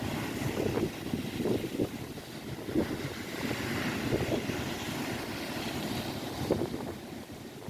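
Wind buffeting the microphone in uneven gusts, over the wash of waves on the Lake Erie shore.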